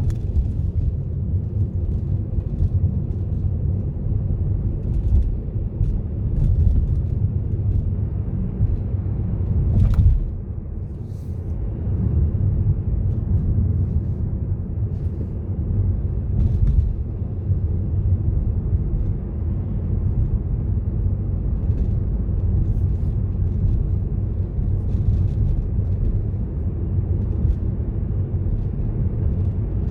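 Car driving along a road: a steady low rumble of engine and tyre noise, easing briefly about ten seconds in.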